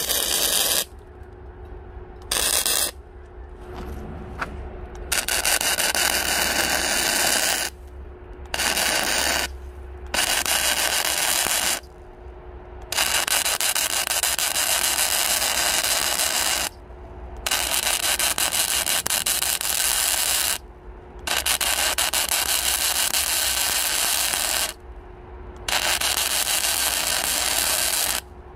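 Electric arc welding on steel: the arc crackles in about nine runs of one to four seconds each, with short breaks between, as the axe blades are welded in place.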